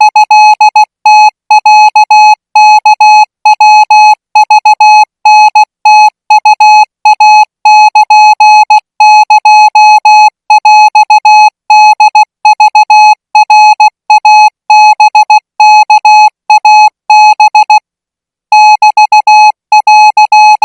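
Thai Morse code practice signal: a single pitched beep keyed on and off in dots and dashes at about 20 words a minute. There is a short pause near the end before a few more characters follow.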